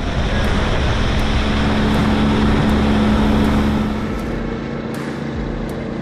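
Boat motor running under way, with a steady hum and a rush of water and wind. It is louder for the first four seconds, then eases off a little.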